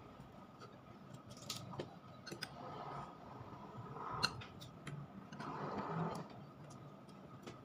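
Faint mouth sounds of someone eating: scattered wet clicks and smacks of chewing, the loudest about four seconds in, with two short rustly stretches, over a faint steady hum.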